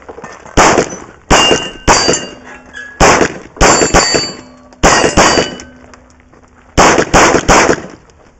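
Glock pistol firing about eleven shots at close range in quick pairs and triples, with steel targets ringing after several of the hits.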